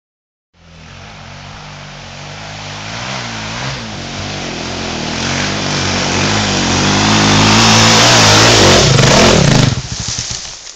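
Dirt bike engine revving as the bike approaches, its pitch rising and falling with the throttle, growing steadily louder to a peak. Near the end it drops away sharply as the throttle is shut.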